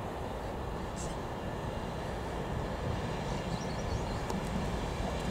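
LNER InterCity 125 High Speed Train going by: steady rumble of the Class 43 power car's diesel engine and of the coaches' wheels on the rails.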